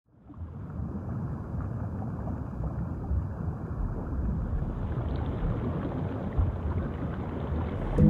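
Low, rushing rumble of ocean surf, fading in from silence and then holding steady, with a little more hiss from about halfway through.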